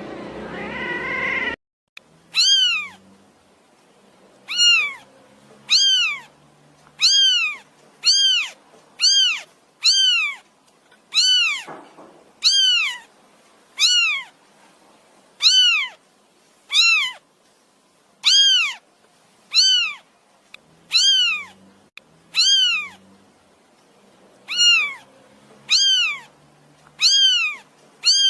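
A cat meowing over and over, about one high-pitched meow a second, each rising then falling in pitch. Before the meows begin, a different rising sound plays briefly and cuts off suddenly.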